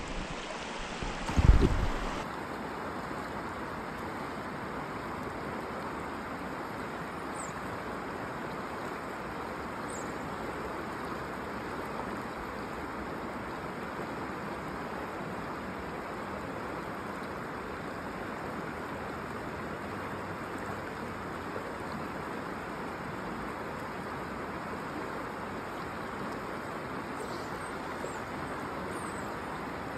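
Steady rushing of a trout stream flowing over a riffle. A brief loud low thump comes about a second and a half in, before the water noise settles.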